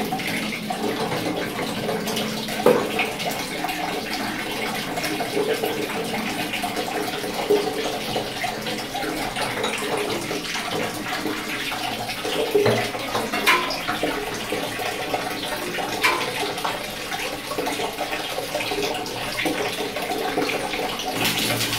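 Water running steadily out of an electric geyser's water heater tank through its unscrewed pipe connections as the tank drains, with a few sharp knocks along the way.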